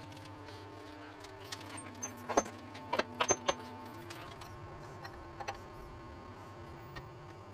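A cluster of sharp metallic clicks and clanks as a workshop engine crane is worked to line up a heavy electric motor, over a steady low hum.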